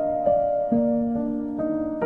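Slow, calm piano music: single notes struck about every half second and left to ring.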